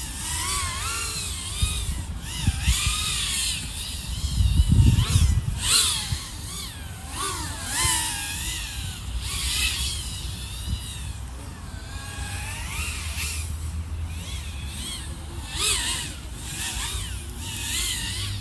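iFlight AOS 3.5-inch quad's four brushless motors (XING 1504 3100KV) and propellers whining, the pitch swooping up and down with the throttle, over a low rumble. The sound is loudest in a burst about five seconds in.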